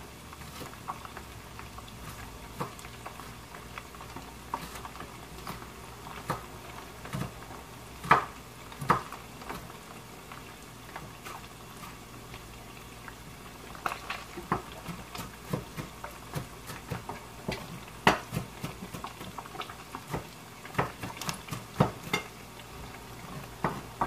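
Kitchen knife chopping on a wooden cutting board: irregular sharp knocks of the blade, coming in quicker runs about halfway through and near the end, over a steady low hiss.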